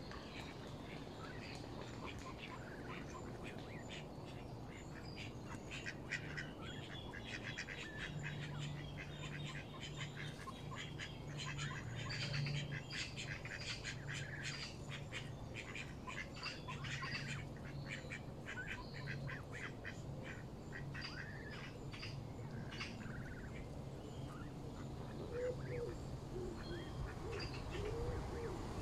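Canada goose goslings and adult geese feeding on the ground: soft waterfowl calls with many quick pecking clicks and small peeps, thickest through the middle stretch.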